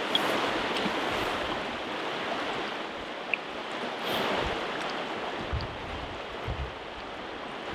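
River current rushing past a drift boat, a steady hiss of moving water, with a few soft low knocks in the second half.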